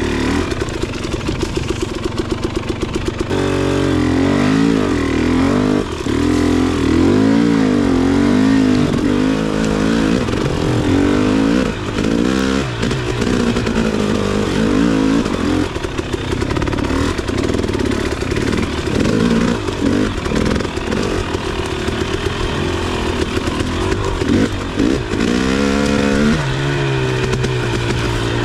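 KTM 300 XC two-stroke single-cylinder dirt bike engine chugging at low revs for the first three seconds or so, then revving up and down over and over as the throttle is worked on and off, settling to a steadier note near the end.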